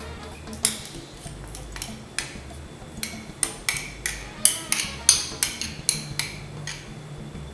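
A plastic squeeze bottle of huancaína sauce being squeezed out over a ceramic platter: irregular sharp clicks and pops, some with a short ring, coming thickest a little past halfway.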